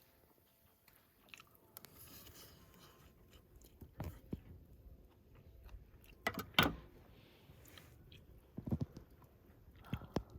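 A person chewing food, with scattered sharp clicks and knocks; the loudest come a little past the middle.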